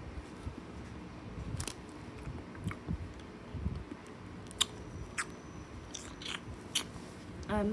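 A person chewing a Mentos candy: irregular soft mouth clicks and small crunches.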